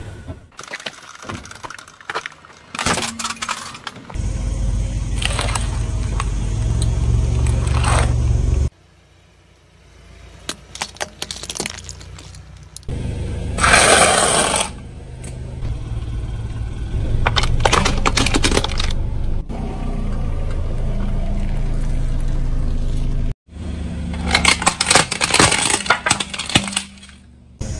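A car tyre rolling slowly over objects and crushing them, in a string of short segments that cut abruptly one to the next: a low engine and tyre rumble with crackling and crunching as things give way. A loud crunch of dry pasta breaking under the tyre comes about halfway through, and wet squashing comes near the end.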